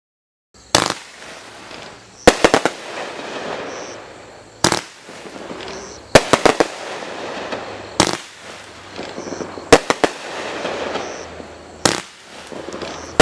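A 500 gram consumer firework cake firing: sharp bangs about every one and a half to two seconds, some coming in quick clusters of two or three, with crackling and hiss between them. It starts about half a second in, after silence.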